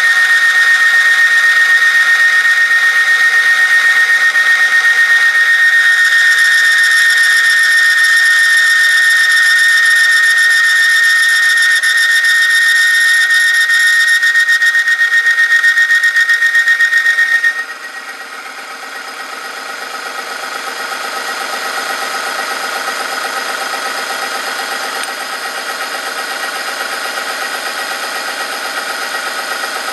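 Oil-film strength test machine running with Shell Helix Ultra Professional AF 5W-30: a weighted lever presses a metal sample against a motor-driven part spinning in the oil, and the contact gives a loud, steady, high-pitched squeal. A little past halfway the squeal cuts off suddenly and gives way to a quieter, lower rough grinding.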